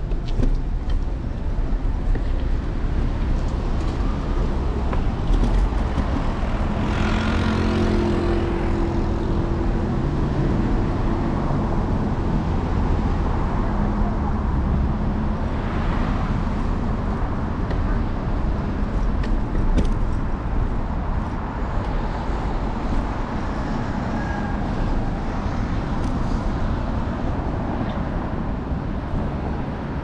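City street traffic: cars passing over a steady low rumble, with one vehicle's engine passing close about a quarter of the way in.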